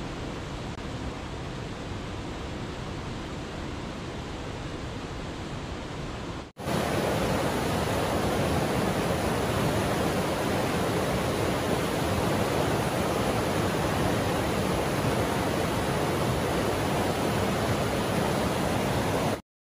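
Steady rushing of falling water from a waterfall. About six and a half seconds in, a cut brings a louder rush, which stops abruptly near the end.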